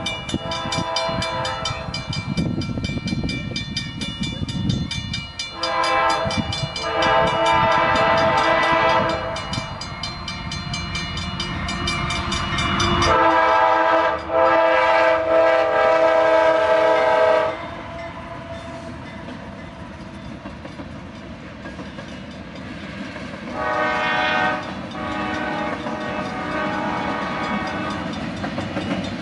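Freight locomotive air horn blowing the grade-crossing signal as the train approaches: a long blast, then a longer one with a brief break, then a short one near the end. A crossing-signal bell dings rapidly through the first half, and the train's steady rolling rumble on the rails runs underneath.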